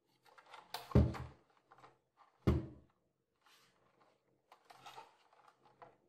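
Plastic laptop docking station handled on a wooden desk: two dull thumps about a second and a half apart, then lighter rubbing and small clicks as it is turned over.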